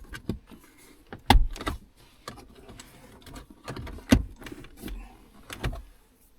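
Plastic dashboard trim panel in a car being worked loose by hand: a series of irregular clicks and knocks of plastic and its clips.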